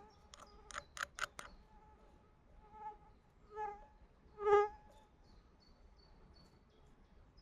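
A flying insect buzzing in four short passes, the loudest about four and a half seconds in. A handful of sharp clicks come in the first second and a half, and faint, short, high bird chirps follow in the second half.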